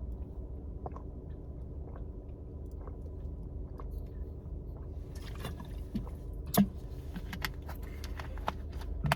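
Steady low hum of a running car heard from inside the cabin. From about five seconds in come scattered small clicks and knocks, one sharper knock past six seconds.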